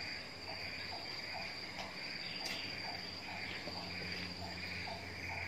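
Tropical forest insects droning in one steady high-pitched tone, with a short lower chirp repeating about twice a second.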